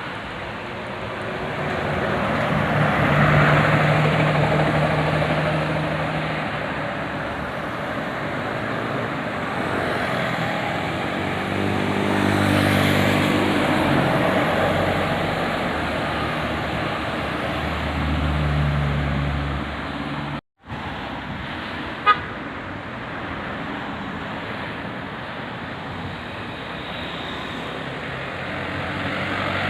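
Bus telolet air horns sounding in three held toots of a few seconds each, over the noise of passing road traffic.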